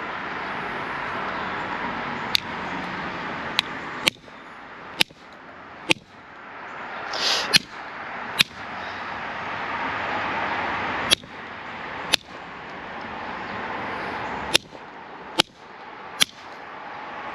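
About a dozen sharp metal strikes, irregularly spaced, as channel-lock pliers hit a soldered pipe fitting, with a short hiss about seven seconds in.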